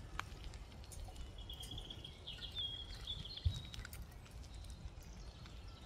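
A wild bird singing a short, wavering high phrase for about two seconds, over faint clicks from wood being handled at a small wood-burning stove. A dull knock comes about three and a half seconds in.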